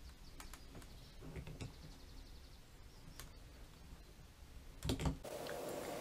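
Faint clicks and light knocks of a soldering iron and a small microphone plug being handled and set down on a workbench, with a louder knock about five seconds in.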